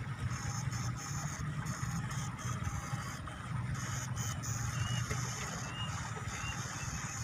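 Backpack electrofishing shocker buzzing: a low hum under a high-pitched whine that cuts in and out several times, then runs on longer in the second half, as the unit pulses current through the probes into the paddy water to stun eels.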